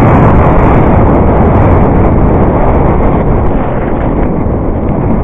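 Loud wind buffeting a bike-mounted camera's microphone, mixed with the rumble and rattle of a mountain bike riding fast down a rough dirt trail. It eases a little after about three seconds.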